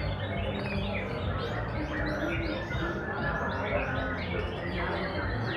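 Dense chorus of caged white-rumped shamas (murai batu) singing at once in a songbird contest round: many overlapping quick whistles and chirps with no break, over a steady murmur of voices.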